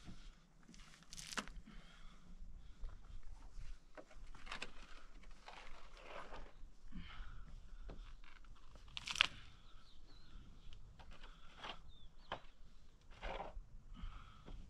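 Spade digging into dry, gravelly earth: repeated crunching strokes about every one to two seconds as the blade cuts in and soil is thrown out, with one sharper strike about nine seconds in.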